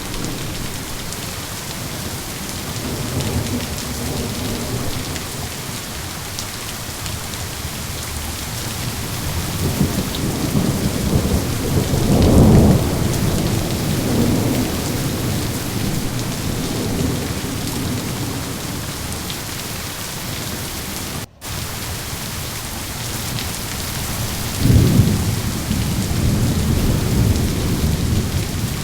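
Steady heavy rain with rolling thunder rumbling low, swelling to its loudest about twelve seconds in and again with a sharper rumble near the end. The sound cuts out for an instant about two-thirds of the way through.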